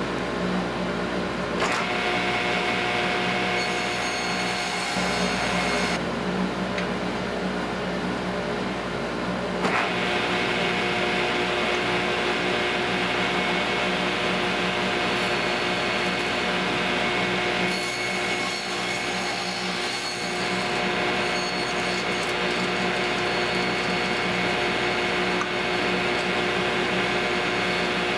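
Table saw running, its blade spinning steadily with a constant whine and cutting across boards, the sound shifting a few times as cuts are made.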